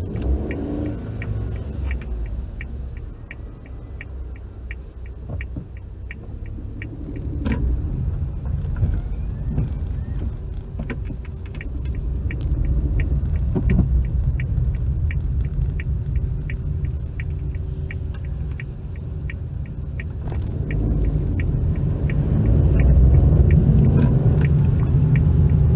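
Low road and engine rumble heard inside a car's cabin, swelling as the car moves off. Over it, the turn indicator ticks at a steady, even rhythm until near the end.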